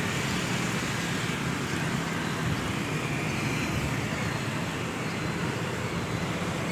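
Steady road traffic noise, a continuous even rush with no single vehicle standing out.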